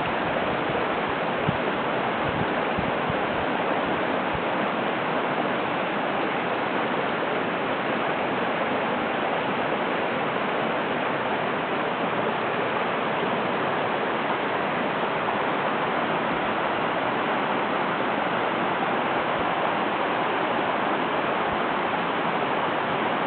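A mountain river's shallow water rushing and burbling over rocks in a steady, unbroken wash.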